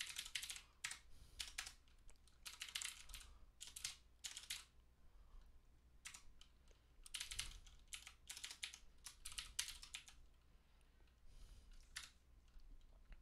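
Computer keyboard typing in fast runs of keystrokes, with a short pause about five seconds in and lighter, sparser keystrokes near the end.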